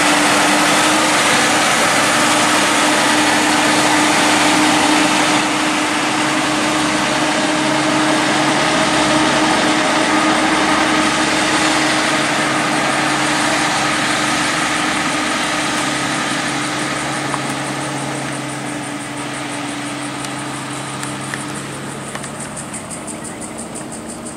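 Kenworth T909 heavy-haulage prime mover and its multi-axle low-loader trailer passing close by: a steady diesel engine note over tyre and rolling noise. The sound fades away over the last several seconds as the rig moves off.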